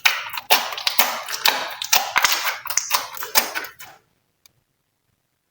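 Glossy slime being squished and worked by hand, giving a quick run of wet, sticky clicks and pops that stops about four seconds in.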